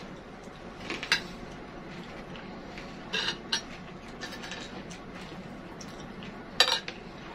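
Spoon and fork clinking and scraping against a plate during eating, a few short sharp clinks about a second in, around three seconds in and near the end.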